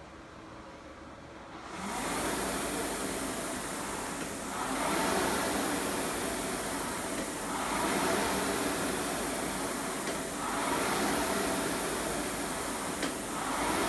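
Concept2 indoor rowing machine's air-resistance flywheel whooshing, starting suddenly about two seconds in and surging with each drive stroke, about every three seconds, a rate of about twenty strokes a minute.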